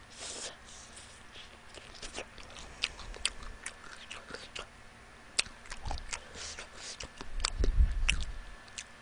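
Close-miked chewing and biting of fried food, with scattered sharp clicks and crunches. A low rumble swells about seven and a half seconds in.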